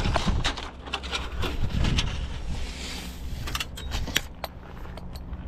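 Irregular light clicks and knocks from vinyl siding pieces being handled and shifted against each other, with a soft hiss partway through.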